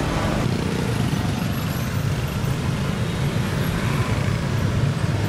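Street traffic: small motorbike engines running as they pass, over a steady wash of road noise.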